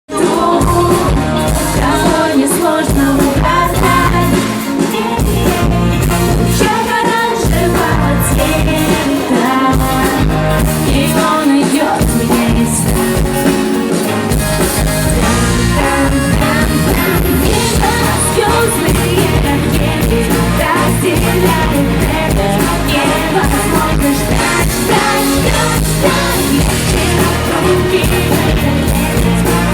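Pop-rock song played live by a band with drums and guitar, with a woman singing the lead.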